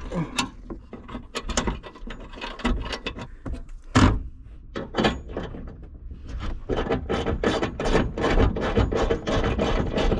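Ratchet clicking as a bolt is wound into a roof-shelf bracket mount: scattered clicks, a sharp knock about four seconds in, then a quick regular run of about five clicks a second.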